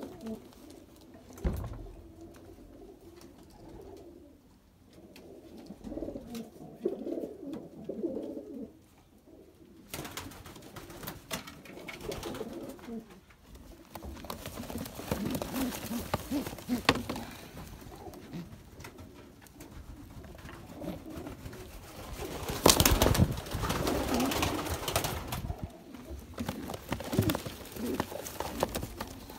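Domestic pigeons cooing, with rustling and knocking from birds being handled in a wooden, slatted pigeon crate; the loudest burst of rustling comes about three-quarters of the way through.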